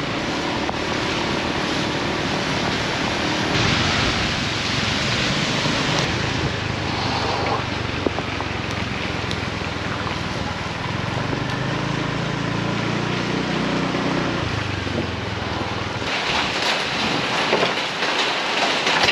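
Motor scooter riding through heavy rain on a flooded road: wind rushing over the microphone, with the engine's hum rising and falling underneath. About 16 seconds in the engine sound drops away, leaving a steady hiss of rain.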